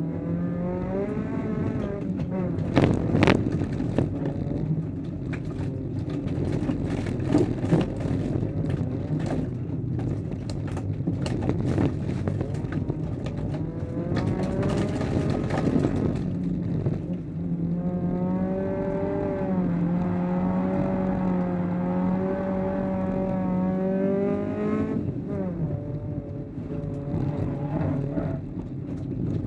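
Honda Civic folkrace car's engine heard from inside the stripped, roll-caged cabin, revving up and down through the gears around the track. Through the first half, sharp knocks and rattles of gravel hitting the underbody sound over the engine. Later the engine note holds high for several seconds, then drops sharply.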